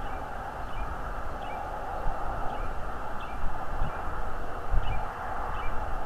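Outdoor ambience with wind buffeting the microphone in low gusty rumbles that strengthen after about three and a half seconds, over a steady hiss. Faint short high chirps repeat at an even pace, about every two-thirds of a second.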